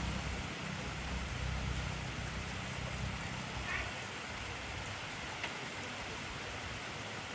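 Steady, heavy rain falling, an even hiss with a few louder individual drops. A low rumble runs under it and fades out about halfway through.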